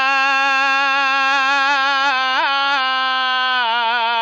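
A man singing an Islamic ibtihal (devotional supplication) solo and unaccompanied. He holds one long, steady melismatic note on a single vowel, with a brief upward flick in the middle, then breaks into a wavering, ornamented run about three and a half seconds in.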